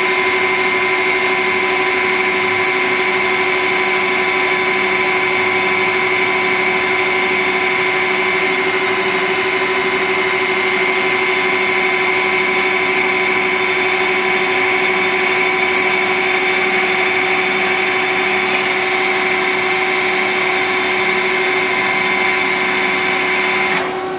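1995 Citizen L20 CNC Swiss-type lathe running a program: a steady machine whine made of several constant tones that drops away shortly before the end.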